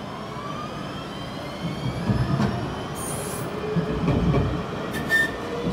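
Alstom Citadis X05 light-rail tram pulling away from a stop: the traction motors' whine rises steadily in pitch as it accelerates, and from about a second and a half in the wheels clunk heavily over the track, with short high squeals around the middle and near the end.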